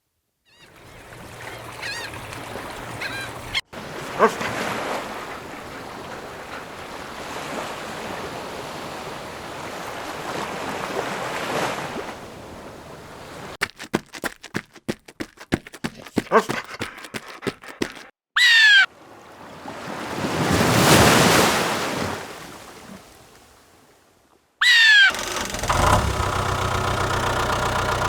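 A string of sound effects: a steady wash of surf with bird calls, a quick run of sharp clicks, and a loud falling bird cry. A wave then swells and breaks away, another falling bird cry comes, and a steady mechanical drone sets in near the end.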